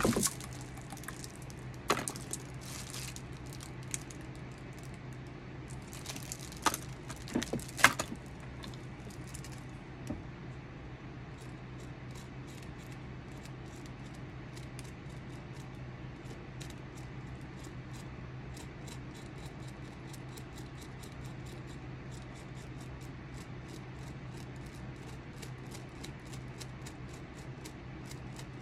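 A hand carving tool scraping and nicking into a wooden walking stick in short, quick strokes, a few a second, from about ten seconds in. Before that, a handful of sharp knocks and bumps from handling the stick on the table, the loudest near eight seconds in, over a steady low hum.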